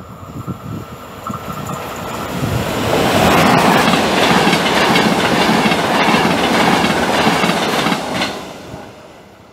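ÖBB Class 1293 Vectron electric locomotive and its passenger coaches running through at speed. The wheel and rail noise builds over the first three seconds, stays loud as the coaches pass, and fades away near the end.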